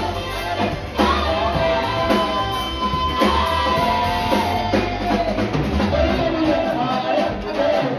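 Live band playing: singing over bass guitar, electric guitar and a drum kit.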